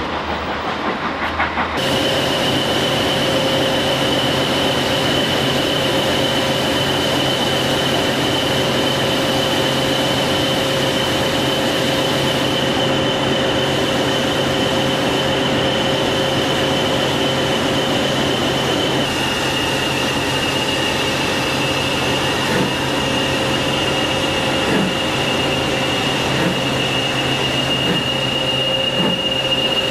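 BR Standard Class 4 4-6-0 steam locomotive No. 75014 standing with steam escaping: a steady hiss carrying a thin, high whistling tone that drops slightly in pitch about two-thirds of the way through, over a low hum.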